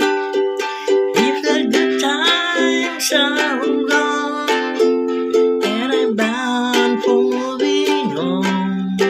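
Ukulele strummed in a steady rhythm, playing chords in a small room, with a wavering melody line over the chords from about a second in.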